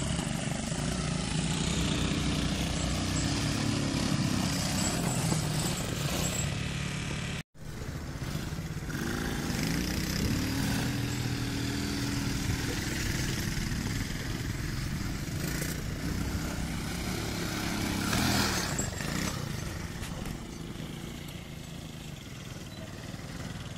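Small youth quad's engine running and revving, its pitch rising and falling as it is ridden over sand mounds. It cuts out briefly about seven seconds in.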